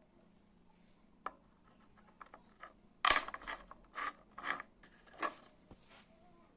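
Metal tools or drill bits being handled: a sharp click, a few light ticks, then several short clattering rattles of metal on metal, and a final click near the end.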